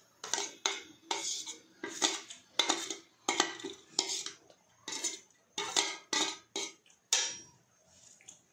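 Steel spoon scraping chopped vegetables off a stainless steel plate into a steel mixing bowl: a quick run of short metallic scrapes and taps, about two to three a second, that stops shortly before the end.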